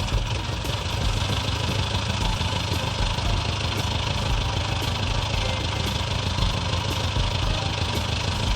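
Vintage car engine running at a steady idle.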